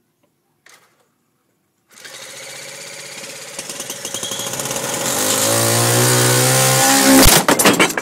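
Model airplane engine spun up with a handheld electric starter, running louder with its pitch climbing steadily for several seconds. About seven seconds in, a burst of loud clattering and banging as the engine test stand fails.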